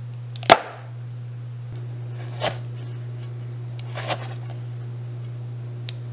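Chef's knife slicing a serrano pepper on a plastic cutting board: a few separate knocks of the blade hitting the board, the first one about half a second in the loudest, the rest every second or two. A steady low hum runs underneath.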